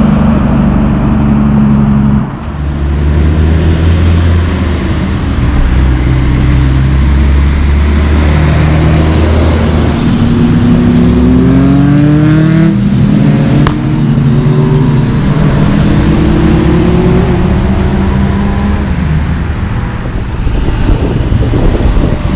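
Heavy diesel semi-trucks driving past close by, engines pulling hard under load. About halfway through, one truck's engine pitch climbs, drops back at a gear change and climbs again as it accelerates through the gears.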